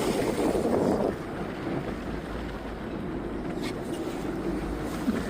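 Wind on the microphone aboard a moving boat, over the rush of water, gustier and louder for about the first second, then steady.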